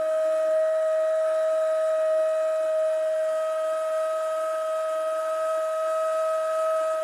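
Ney (end-blown reed flute) holding one long steady note, with an airy breath sound under the tone.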